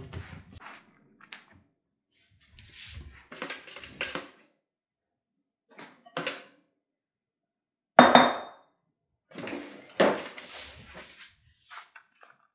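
Kitchen handling sounds: an irregular string of scrapes, rustles and knocks, the loudest a sharp clatter about eight seconds in.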